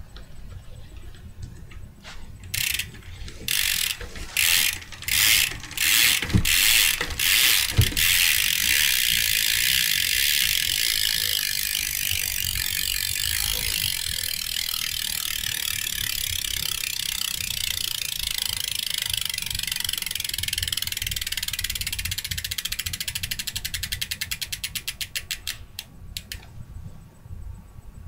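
Stock Sapient BMX rear hub's pawls ratcheting as the wheel freewheels: several short bursts of clicking, then one long, fast buzz of clicks that slows into separate ticks near the end as the wheel winds down. Pretty loud for a stock hub, with its grease still in.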